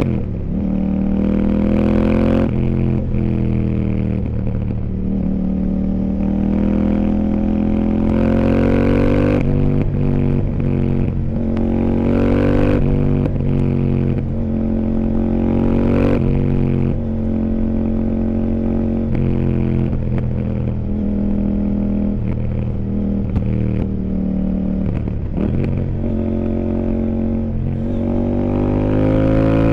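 CFMOTO 800NK's parallel-twin engine under way, revving up and dropping back over and over as it accelerates, shifts and slows through the bends. A few short sharp cracks come at the gear changes and roll-offs.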